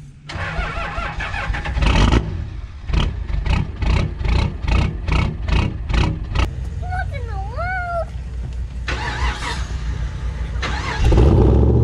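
The FJ40's 6-litre L77 V8 is fired up and revved through its exhaust, with quick throttle blips about twice a second and a louder rev near the end. A short wavering tone, bending down then up, sounds about seven seconds in.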